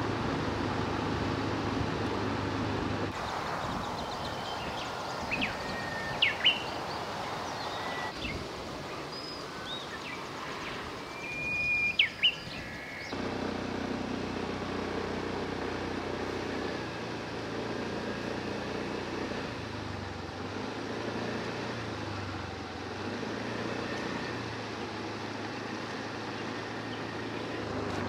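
Steady background rumble and hum of machinery or traffic, changing abruptly every few seconds. In a quieter stretch from about three to thirteen seconds in, a few short high bird chirps sound, loudest around six and twelve seconds in.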